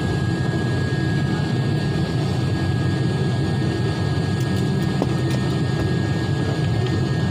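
Steady engine drone inside an airliner cabin, an even low rumble with a thin high steady tone running through it.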